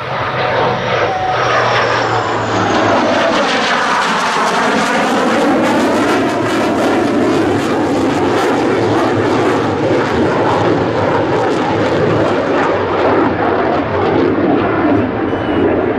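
CF-18 Hornet fighter jet's twin General Electric F404 engines during a close, fast pass: a loud, sustained jet roar that sweeps as the aircraft goes by, with a crackling edge through most of the pass.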